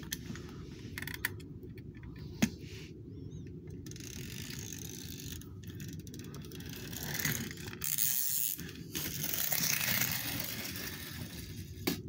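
Small die-cast toy school bus being pushed over wooden boards: a few sharp clicks in the first seconds, then a rough mechanical rolling noise from about four seconds in, loudest near the end.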